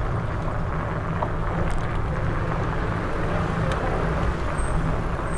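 Steady low rumble and city street noise picked up from a moving bicycle, with a couple of faint ticks.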